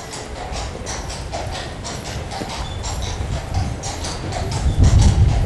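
Hard, quick steps clacking on cobblestones, about three to four a second. A low rumble swells near the end.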